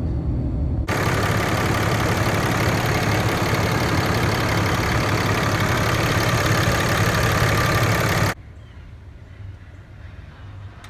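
Cummins 6.7 L turbo diesel running at idle, heard close up in the engine bay. A loud steady hiss with a faint high whine sits over the low engine rumble. It starts abruptly about a second in and cuts off sharply about eight seconds in, leaving a much quieter low hum.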